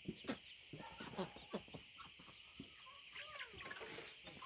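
Hens clucking, with soft wavering calls about three seconds in, among scattered short taps.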